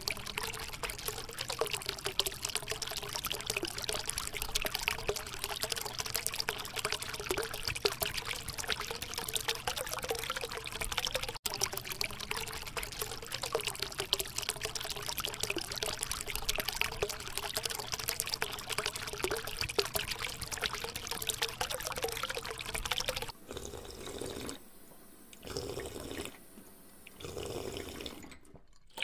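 A thin stream of water pouring from a small plastic tube into a plastic tub as it fills, steady at first. Near the end the flow breaks up into a few short spurts with pauses between them.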